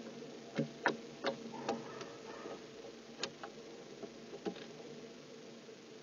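Irregular sharp clicks and taps, about eight of them spread over the first four and a half seconds, as barn owls move about on the wooden nest box. A steady electrical hum from the camera system runs underneath.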